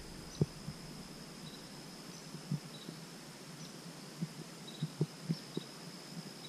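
Faint outdoor ambience: a steady high insect trill like crickets, with a few faint chirps over it and several soft low thumps.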